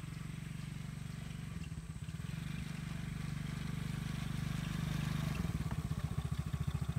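Small engine of a child's four-wheeler (youth ATV) running at low speed, getting louder as it comes closer. Its note wavers about a couple of seconds in, and near the end the engine slows to a beat of separate pulses.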